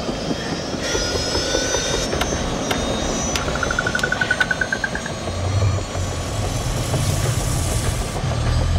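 Helicopter in flight, its engine and rotor noise a steady loud din. A few seconds in comes a fast run of short beeps, rising slightly in pitch, and a low rumble swells near the end.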